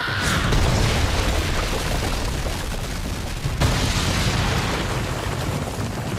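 Animated sound effects of an earth jutsu: a sudden boom as a wall of rock bursts up out of the ground, then heavy rumbling of grinding, tumbling rock. A second sharp impact comes about three and a half seconds in.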